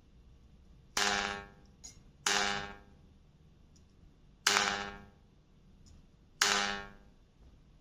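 Steel bayan reed tongue plucked four times, each pluck giving a sharp, clearly pitched twang that dies away within about half a second, as the reed is checked for centring in its slot.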